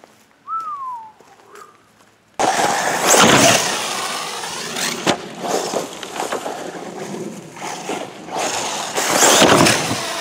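Arrma Typhon 6s electric 1/8-scale RC buggy with a Castle brushless motor, driven fast over grass and dirt. The motor whine and tyre noise start suddenly about two seconds in, then rise and fall as the buggy passes back and forth. Near the end it launches off a ramp.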